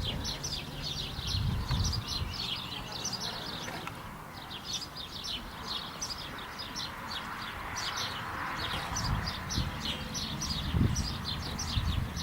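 Many small birds chirping in a dense, continuous chatter of short, high calls, with a few low thuds underneath.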